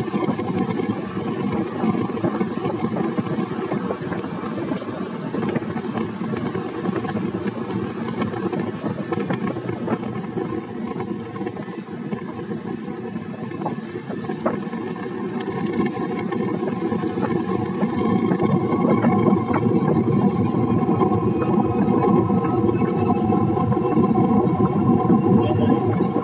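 Motorcycle engine running steadily while riding, with road and wind noise, growing louder over the last several seconds.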